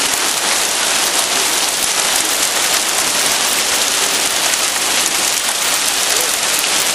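Hail and heavy rain pelting down in a loud, steady hiss of countless small impacts on the ground, cars and roofs. The hailstones are getting bigger.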